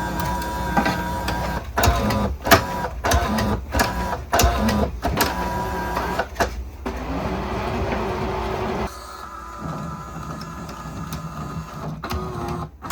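3D printer's filament feeder motors running as they draw filament from the spool into the printer, with steady motor tones and repeated sharp clicks. About nine seconds in, the sound changes and drops to a quieter steady hum.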